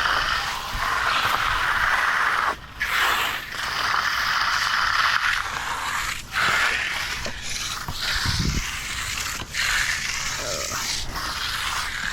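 A concrete tool scraping and dragging through wet concrete in long strokes, with short breaks between strokes.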